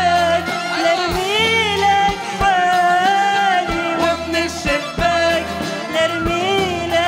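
A woman singing an Arabic song into a microphone with band accompaniment, holding and bending long notes over a bass line and a steady drum beat.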